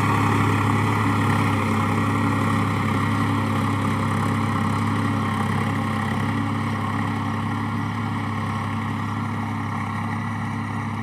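Engine of a farm ploughing machine running steadily with a low drone, slowly growing quieter.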